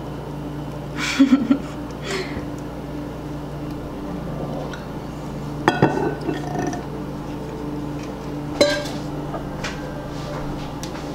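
A few short clinks and knocks of a metal saucepan and bowls against a ceramic mixing bowl as cake batter is poured and stirred, over a steady low hum.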